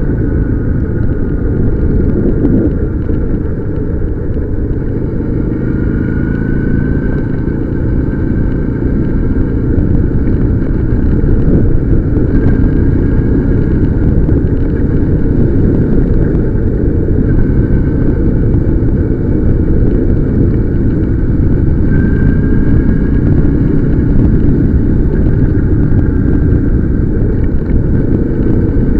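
Wind rushing over the microphone of a riding motorcycle, with the engine running underneath and its pitch rising and falling gently as the speed changes.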